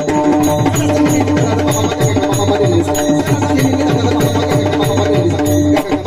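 Kirtan accompaniment without voice: a hand drum plays a fast run of strokes whose bass notes fall in pitch, over regular metallic ticks and a steady held note.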